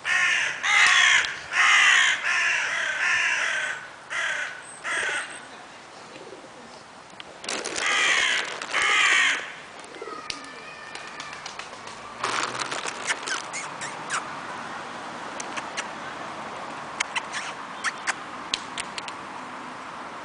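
Crows cawing: a run of loud, harsh caws in the first few seconds and two more a few seconds later. Scattered sharp ticks follow in the second half.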